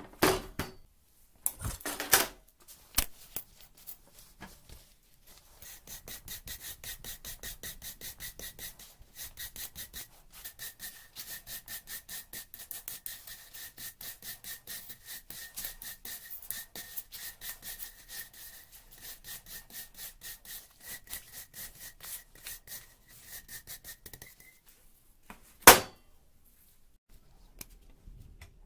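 A hand tool scraping back and forth on metal in quick, even strokes, about four or five a second, with a faint steady ringing under them. A few knocks come just before the strokes start, and one sharp knock comes after they stop.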